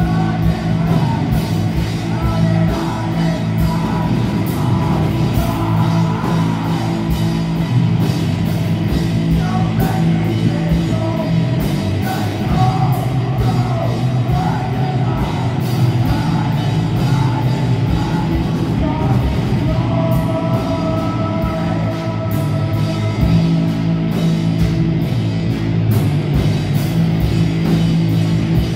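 Live rock band playing loud and steady: electric guitars and bass over drums, with cymbals keeping an even beat and sung vocals.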